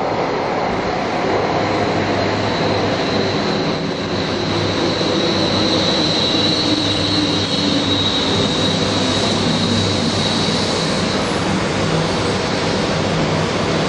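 200 series Shinkansen train passing close by: a steady rush of wheel and air noise, with a high whine for several seconds in the middle.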